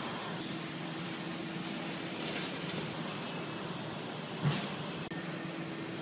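Rotary hearth furnace running: a steady industrial noise with a low hum. A single short knock about four and a half seconds in.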